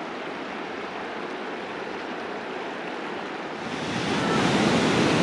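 Mountain river rushing over rocks: a steady rush of water, fairly distant at first, that gets much louder and brighter about four seconds in, close beside the white-water rapids.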